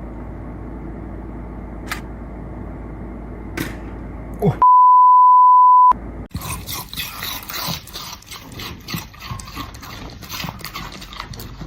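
A loud, steady, single-pitched electronic bleep lasting just over a second, about halfway through. Before it there is a dull, muffled noise; after it, a busier stretch full of short clicks and knocks.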